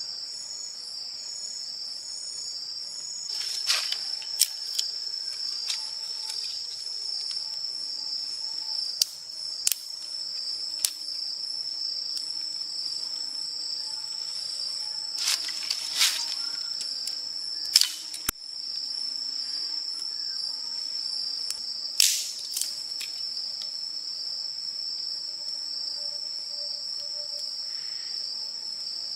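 A steady, high-pitched, pulsing chorus of forest insects, with scattered sharp knocks and clacks from handling gear at the campsite. The loudest knocks come about 18 and 22 seconds in.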